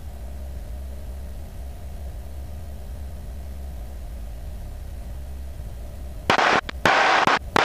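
Steady low drone of a single-engine propeller plane's engine heard through the cockpit headset intercom. About six seconds in, several loud, broken bursts of radio noise cut in.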